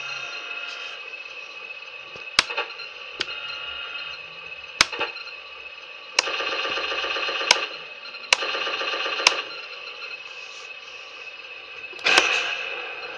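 An RC Sherman M4A1 (76) tank's Clark sound module plays a steady engine idle through its small speaker. Sharp clicks come through it, two rattling bursts of machine-gun fire about a second each, and a loud cannon shot near the end.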